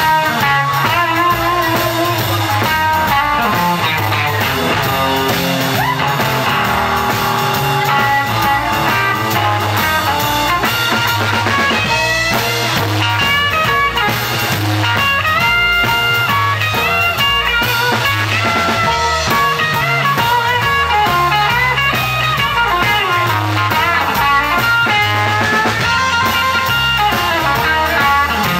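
Live blues band playing an instrumental passage on electric guitar, electric bass and drums, with no singing. Over a steady bass and drum groove, a lead line of held and bent notes carries the melody.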